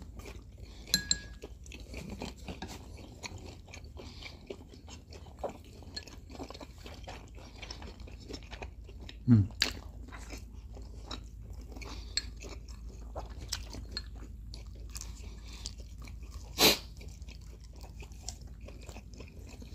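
Close-miked chewing and biting of pan-fried pork potstickers, with many small mouth clicks and crunches throughout. A brief low vocal sound comes about halfway, and a single sharp, louder click comes about three seconds before the end.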